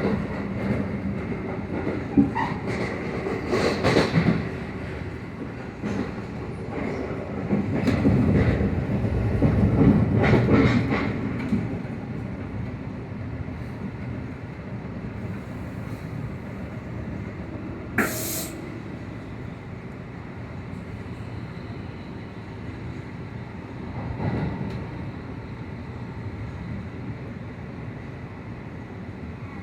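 A train passing over rails: steady rumble with wheel clatter, loudest in the first dozen seconds and then settling to a quieter rumble, with one sharp metallic clank about eighteen seconds in.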